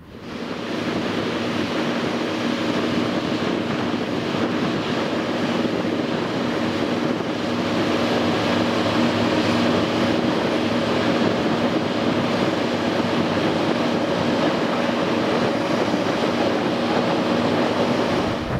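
Steady drone of a ship's engines, several low hums held evenly over a rushing noise of wind and water, fading in at the start.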